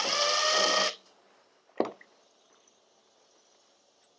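Cordless drill/driver running as it backs a screw out of the battery pack's sheet-metal case, stopping about a second in. A single short click follows a little under a second later.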